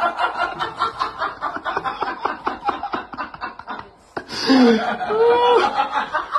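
A person laughing in quick, breathy chuckles for nearly four seconds. After a brief break, a voice rises and falls in pitch.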